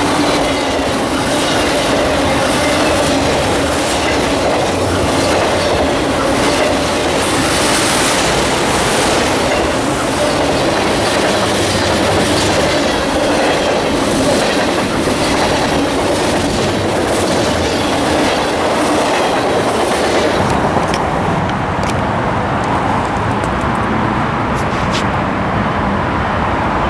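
Freight train cars rolling past at track speed: a steady rumble with wheels clacking over the rail joints. About twenty seconds in, the high-pitched hiss falls away and the sound turns duller.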